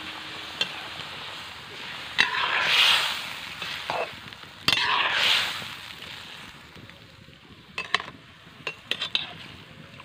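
A spatula stirring and scraping fish curry in a steel wok, with sharp clicks of metal against the pan and two louder swells of sizzling about two and five seconds in.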